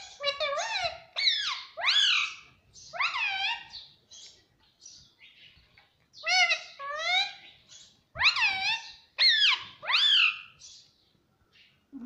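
Indian ringneck parakeet calling: short, high-pitched calls that rise and fall, coming in quick runs with a quieter stretch in the middle.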